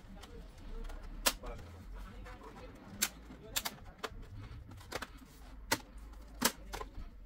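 Plastic retaining clips of an HP all-in-one PC's bottom bezel snapping loose as it is pried off with a plastic opening tool: a series of sharp clicks, about eight, spread unevenly.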